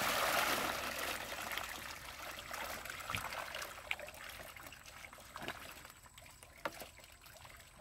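Water and small fish pouring out of a fishing net into a plastic crate. The rush of water fades over the first couple of seconds to dripping, with scattered small splashes and taps.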